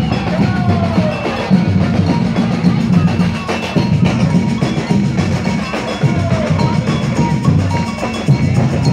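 A marching drum band playing a continuous rhythm on large bass drums and smaller drums struck with sticks and mallets.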